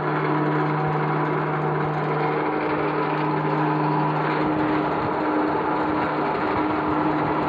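Cliff railway's haulage cable and winding machinery running as the funicular cars are hauled along the track: a steady mechanical hum with a continuous whirring rattle.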